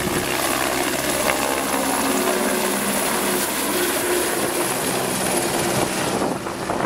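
Helicopter taking off and flying close past, its rotor and engine running loud and steady, easing off slightly near the end as it moves away.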